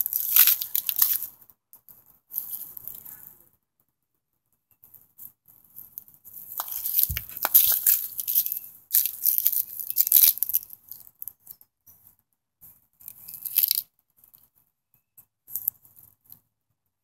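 Rustling and crunching close to the microphone in irregular bursts with short quiet gaps, loudest around the middle of the stretch.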